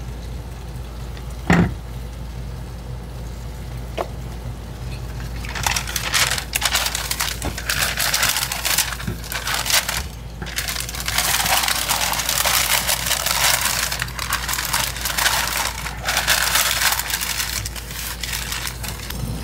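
Butcher paper crinkling and rustling as it is folded and wrapped around a brisket, in two long stretches with a short break about ten seconds in. A sharp knock comes about a second and a half in.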